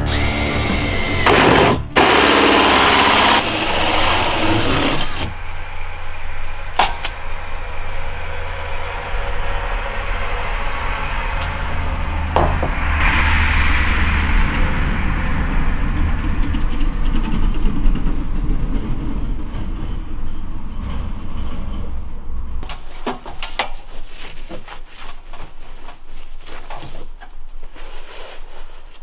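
Cordless drill work on ceiling panels overhead, mixed with background music: a loud burst of drilling early on, then a steady low hum with a few sharp clicks, and a run of clicks and knocks near the end.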